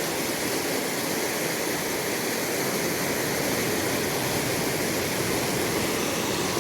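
River water rushing steadily, an even, unbroken hiss.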